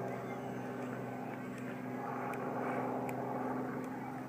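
Distant engine droning steadily, a low hum of several even tones that swells slightly in the middle, with a few faint clicks.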